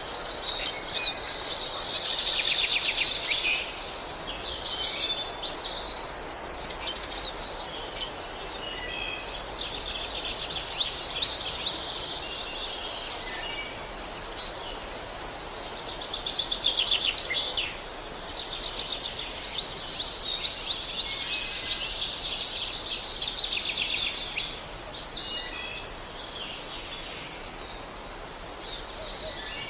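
Many small birds chirping and singing together in a dense chorus. The chorus swells and fades in waves over a steady background hiss.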